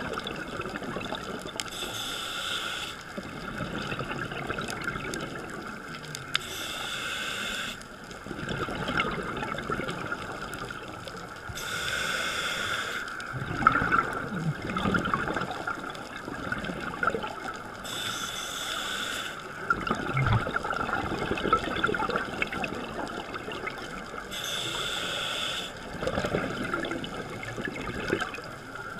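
Scuba diver breathing through a regulator, heard underwater through a GoPro's waterproof housing. Each breath gives a short hiss on the inhale and a longer rumble of exhaust bubbles, about every five to six seconds.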